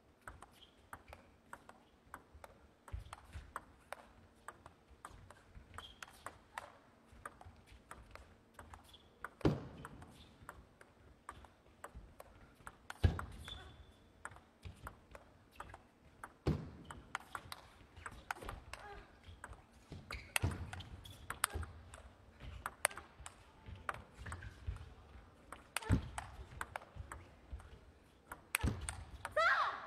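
Table tennis rally: the ball clicks off rubber-faced rackets and the table in quick succession, with a few harder hits spaced several seconds apart.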